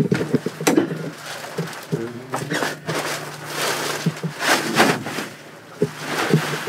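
A person climbing onto a padded exam table and settling onto his side: rustling of the table covering and pillow, with shuffles and a few light knocks.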